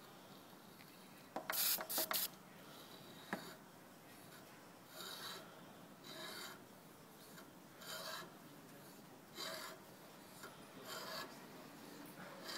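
Time-Sert thread tap being turned by hand into a drilled hole in a metal bracket, cutting new threads in short scraping strokes about every second and a half. A few sharp clicks about two seconds in.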